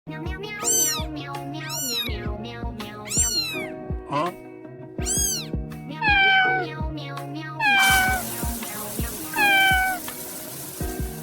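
A cat meowing about seven times over background music with a beat, the early meows rising then falling in pitch and the later ones falling. A steady hiss comes in about eight seconds in.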